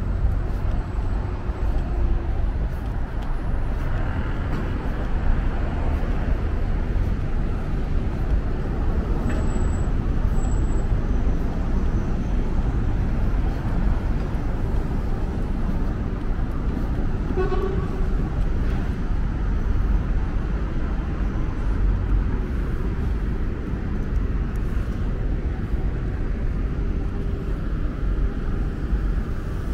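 Steady city-street traffic noise with a heavy low rumble and some voices of passers-by. A short vehicle-horn toot sounds a little past halfway.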